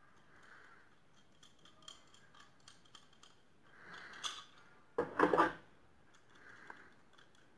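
Steel projector ceiling-mount plates and brackets handled in gloved hands: scattered light metallic clicks and scraping, with a louder clatter of metal on metal about five seconds in as the parts are fitted together.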